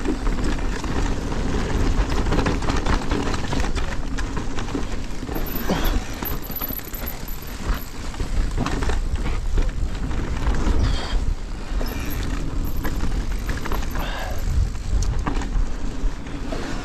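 E-mountain bike ridden down a rocky trail: a steady low wind rumble on the microphone, with tyres crunching over stones and the bike clicking and clattering over bumps.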